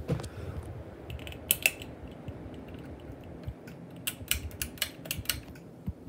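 Harbor Breeze Grace Bay 52-inch ceiling fan running with a low steady rumble, under a series of sharp clicks: two about a second and a half in, then a quick run of about seven, some five a second, near the end.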